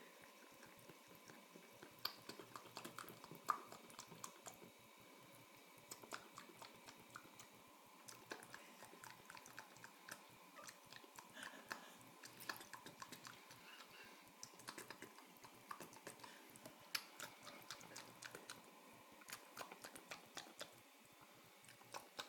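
Domestic cat lapping water in a sink: faint, irregular wet clicks and ticks.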